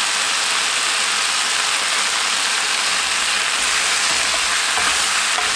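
Gochujang-marinated pork sizzling steadily in a hot frying pan, with a few faint ticks of chopsticks moving the meat in the second half.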